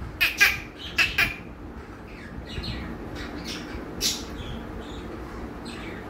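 Budgerigar calls: four sharp squawks in two quick pairs in the first second and a half, then softer scattered chirps, with one louder call about four seconds in.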